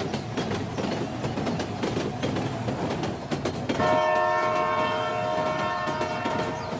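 A steady clattering rumble, with a long horn blast of several steady tones held for nearly three seconds starting about four seconds in.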